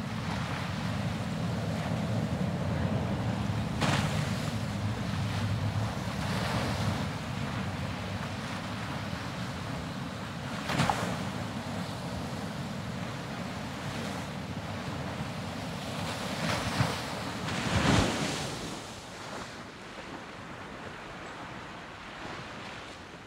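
Sea water churning and splashing close to the microphone, with wind buffeting it. A few louder splashes stand out, the biggest about three quarters of the way through, and the water grows quieter near the end.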